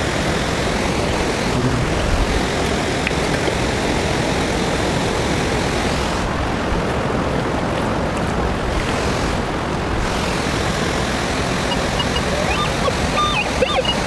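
Steady rush of waterfall and stream water. Near the end come a few short, high electronic beeps from a Minelab Vanquish metal detector.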